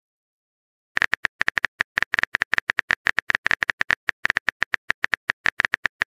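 Phone keyboard typing sound effect: short key-tap clicks, several a second and unevenly spaced, starting about a second in as a text message is typed out letter by letter.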